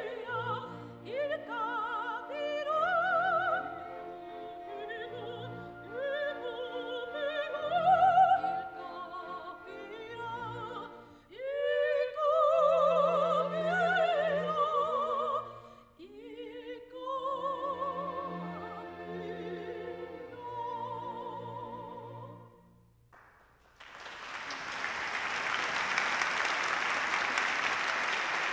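Two female operatic voices sing a duet with strong vibrato over a soft orchestral accompaniment. Near the end the singing stops, and after a brief pause an audience breaks into steady applause.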